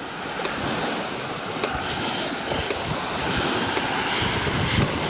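Small waves breaking and washing up a sandy shore, a steady surf hiss, with wind buffeting the microphone.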